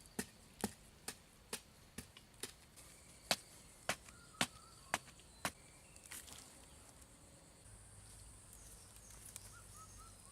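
A series of sharp clicks, about two a second, that stops about five and a half seconds in. After that comes a steady high insect buzz with a few faint bird chirps.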